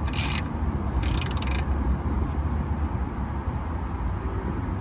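Socket ratchet clicking in two short runs within the first second and a half as the oil drain plug is snugged down, over a steady low rumble.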